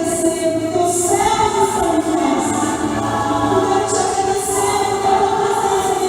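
Choir singing a slow song with long held notes.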